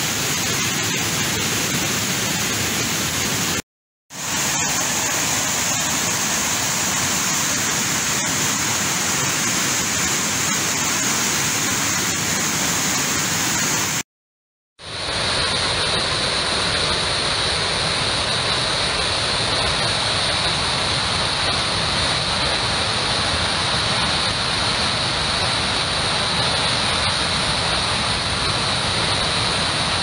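Swollen, muddy floodwater of a forest waterfall and stream rushing over rocks, a loud steady rush; the stream is in flood after days of heavy rain. The sound cuts out briefly twice, about four seconds in and about fourteen seconds in.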